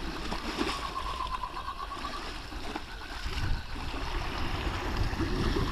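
A fixed-spool spinning reel being wound in, bringing a small fish up. Under it, sea wash and wind buffeting the microphone, the low rumble growing stronger in the second half. A thin steady whine sounds for about a second and a half near the start.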